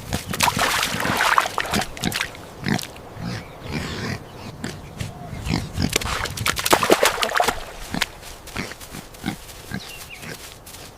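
An animal vocalising in two loud, noisy bursts, one near the start and one about six seconds in, with scattered clicks and rustles between.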